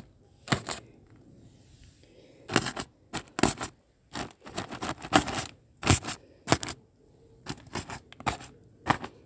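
A small knife stabbing ventilation holes in a plastic bag full of dry leaves and compost: about twenty sharp plastic pops and tears at irregular intervals, some in quick pairs.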